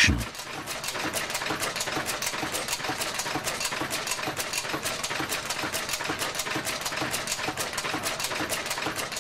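Pencil-stamping machine running with a rapid, even clatter of clicks as it presses the lettering onto coloured pencils.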